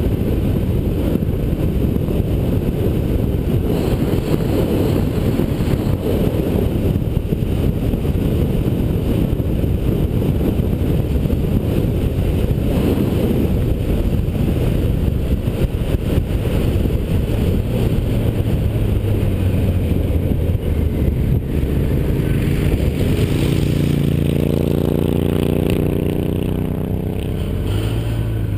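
Wind rushing over the microphone of a 2008 Kawasaki ZX-10R's camera at road speed, with the bike's inline-four engine running underneath. In the last few seconds the wind eases and the engine note comes through plainly, falling in pitch as the motorcycle slows.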